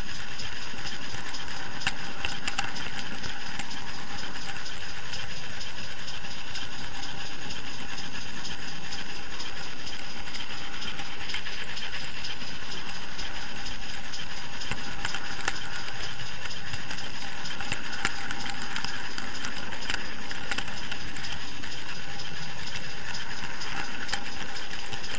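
Model railway camera wagon rolling along the track, pushed by a sound-fitted Pannier tank locomotive: a steady mechanical whir with several steady tones over a constant hiss and light rattle.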